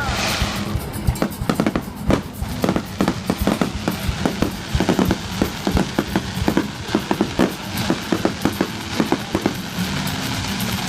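Aerial fireworks bursting in a rapid, irregular barrage of sharp bangs and crackles, several per second, with music playing underneath.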